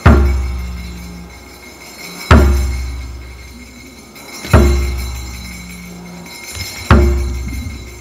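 Background music: four deep percussive hits, evenly spaced a little over two seconds apart, each ringing on and slowly dying away, over a steady high sustained tone.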